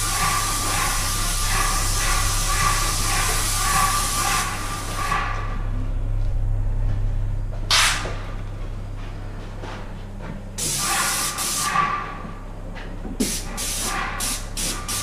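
Airless paint sprayer with a 310 fine-finish tip at about 1400 PSI, spraying primer: a steady hiss of atomised paint for about the first five seconds. Then comes one short burst, another spray lasting about a second and a half, and several quick trigger bursts near the end, all over a steady low hum.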